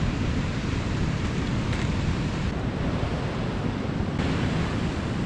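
Ocean surf washing on a beach, with wind on the microphone.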